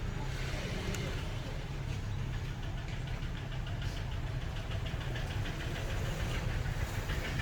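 A motor or engine running steadily with a low hum, joined by a fast, faint, regular ticking from about two and a half seconds in.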